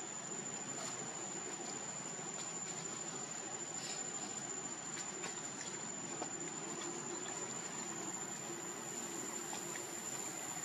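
Forest ambience: a steady hiss under a continuous high-pitched insect whine, with a few faint clicks.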